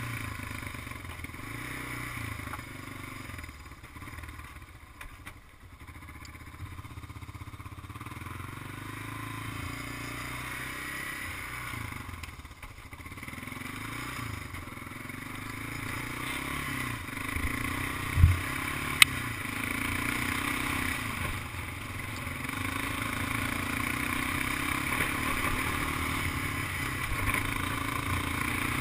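Honda ATV engine running under way, its note rising and falling with the throttle, with clattering from the machine. There is a sharp thump about two-thirds of the way through and a click just after, and the engine grows louder toward the end.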